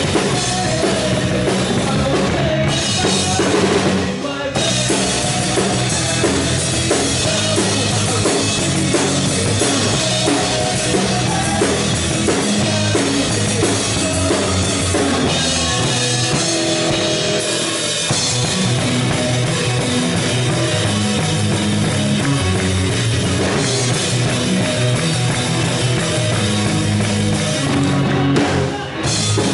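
A live rock band playing, heard from right beside the drum kit: drums and cymbals are loudest, with pitched instruments underneath. The music briefly drops about four seconds in and again near the end.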